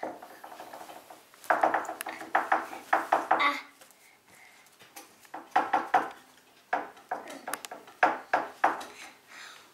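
Light clicking and clinking of small hard objects knocking together, in quick clusters with a brief ring after each click and short pauses between the clusters.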